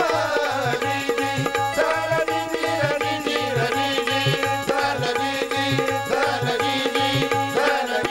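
Instrumental interlude of a Marathi powada folk ballad: a hand drum beats a steady rhythm, about two to three strokes a second, under a wavering melodic line and a held drone.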